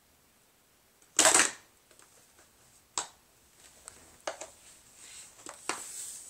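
Small plastic Play-Doh cans clattering against each other and the wooden floor: one loud clatter of several quick knocks about a second in, then a sharp click and a few lighter knocks as the cans are moved about.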